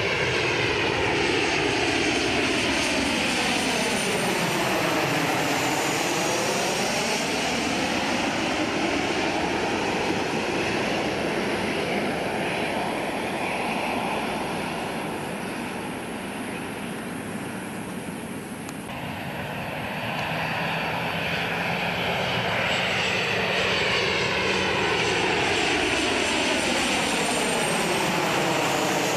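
Boeing 737 airliner's CFM56-7B turbofans on final approach, passing low overhead with a steady jet rumble and a high fan whine, then fading as the aircraft moves away. After an abrupt cut, a second 737 approaches and swells loud again as it passes directly overhead near the end.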